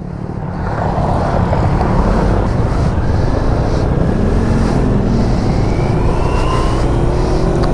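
Motorcycle engine accelerating as the bike pulls away and picks up speed, its pitch rising slowly through the second half, under a steady rush of wind and road noise.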